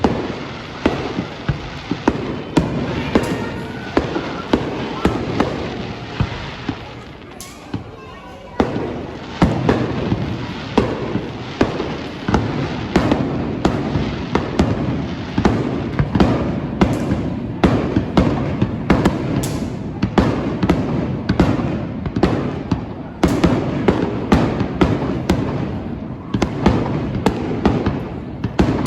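Fireworks display: a rapid string of bangs and crackling bursts, with a short lull about seven seconds in.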